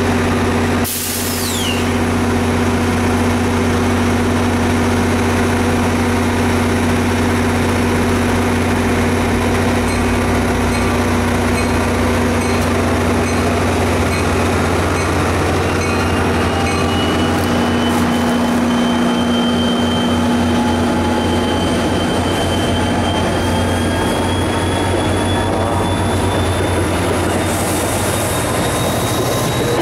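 Diesel locomotive's engine running steadily at close range, a deep hum with steady pitched tones. A short high squeal falls in pitch about a second in, and from about halfway a faint high whine slowly rises in pitch.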